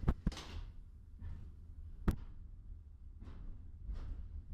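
Tram noise: a steady low rumble broken by sharp clicks, two close together at the start and another about two seconds in, with several short swishes of noise in between.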